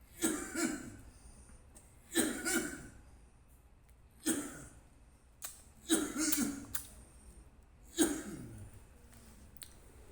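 A man coughing over and over, a harsh cough or a quick pair of coughs about every two seconds, five bouts in all.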